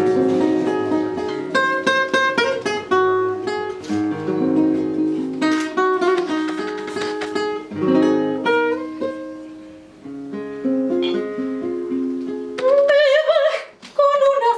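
Acoustic guitar played solo in a plucked, arpeggiated passage of notes and chords. Near the end a woman's voice comes in, singing with vibrato over the guitar.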